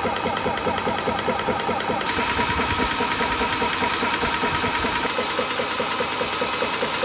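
Portable high-pressure PCP air compressor running under load while filling an air pistol, its piston pumping in a fast, steady rhythm with the cooling fans humming. The sound changes slightly between about two and five seconds in.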